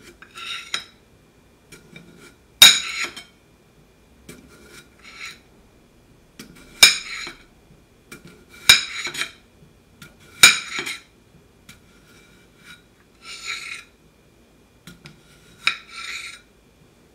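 Ceramic knife slicing raw potatoes on a plate: about ten cuts at uneven intervals, each a short scrape as the blade goes through, four of them ending in a sharp, loud clack of the blade on the plate that rings briefly.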